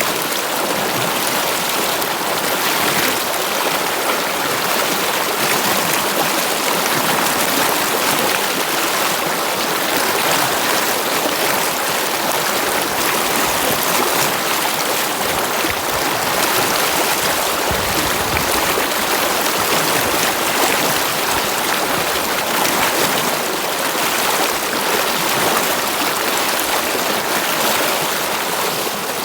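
Stream water rushing and splashing steadily, an even unbroken flow.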